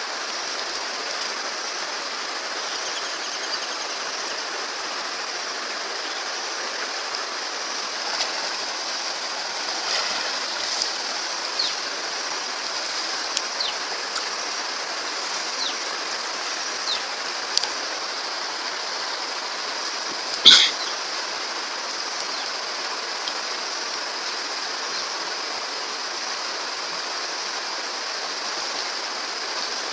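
Steady rush of flowing water, with scattered short ticks and one sharp, louder crack about twenty seconds in.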